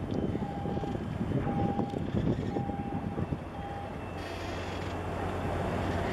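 A small motorboat's engine running as it passes close by, mixed with wind on the microphone. A distant reversing-alarm-style beeper sounds about once a second, stopping about four seconds in.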